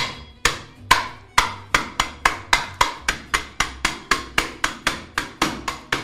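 A small, heavy pan pounding hazelnuts sealed in a freezer bag, crushing them into pieces. The blows are sharp and repeated, about two a second at first and quickening to about four a second.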